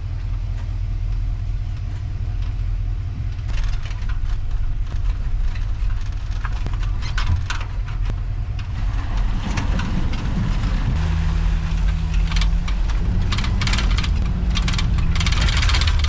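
Truck driving, recorded from a camera mounted on the back: a steady low engine and road rumble with wind gusting on the microphone. A steady engine drone comes in about two-thirds of the way through.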